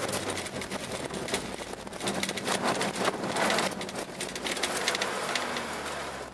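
Car engine running steadily, heard from inside the cabin, under a dense crackling hiss of the tyres and the snow and ice they throw against the car as it drives over the ice track.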